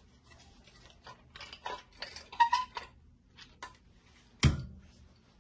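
Hard parts of a cup sealing machine being handled during assembly: a quick run of clicks and clinks, some ringing briefly, then a single heavier knock about four and a half seconds in.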